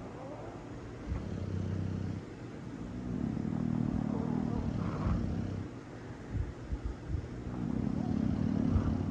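Bulldog snoring in its sleep: three long, low snores a few seconds apart.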